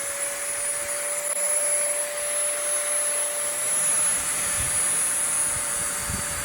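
Dremel rotary tool spinning at high speed with a steady high whine, its small bit grinding an engraved line into mild steel plate with a constant hiss.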